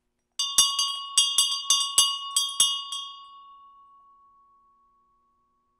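Small cast aluminium-bronze bell (about 11% aluminium, the rest copper), hung on a cord and struck about ten times in quick succession over two and a half seconds. Each strike rings with many high, bright tones that die away within a second or so. One clear tone near 1 kHz keeps humming long after the strikes stop.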